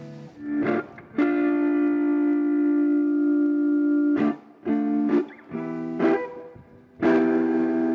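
A single instrument being sound-checked on stage, playing a long held note, a few short notes, then another long held note, with brief gaps between them.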